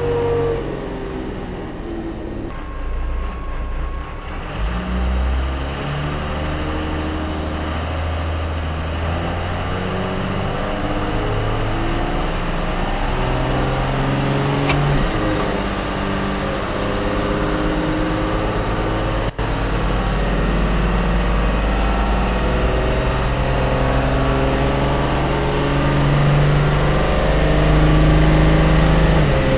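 12-valve Cummins inline-six turbo diesel running on a chassis dyno, with its rear wheels turning the rollers. It gets louder toward the end, where a thin whine rises in pitch, and there is a single sharp click about halfway through.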